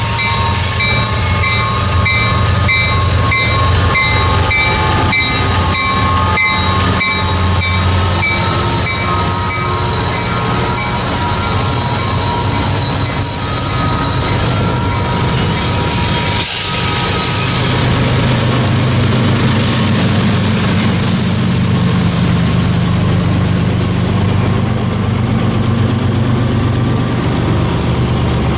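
Freight locomotives, a Norfolk Southern SD60I leading two BNSF ES44s, passing loud and close with a bell ringing repeatedly; the ringing fades out about ten seconds in. After that, loaded ethanol tank cars and hoppers roll past with a steady low rumble and wheel noise.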